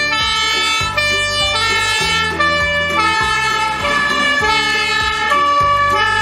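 Fire engine siren sounding in alternating pitches from an aerial-ladder fire truck as it drives past.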